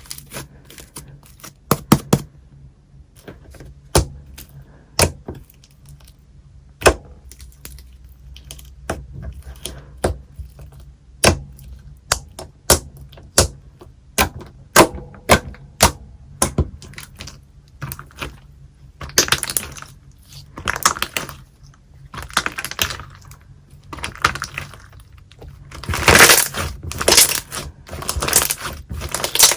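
Slime being pressed and squished by hand, giving sharp irregular clicks and pops, with denser crackling runs near the end.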